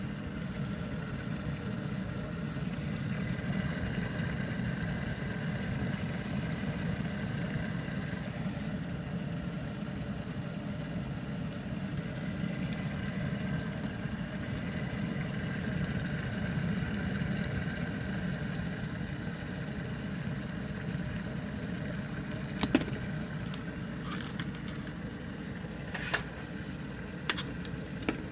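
Electric kettle heating water: a steady low rushing noise, with a few sharp clicks near the end.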